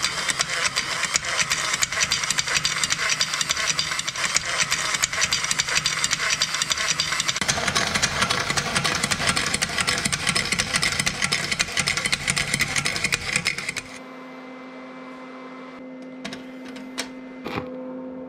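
Homemade spray-can shaking mechanism running with a dense, rapid mechanical clatter. The clatter changes character about halfway through and stops suddenly near the end, leaving a low steady hum and a few clicks.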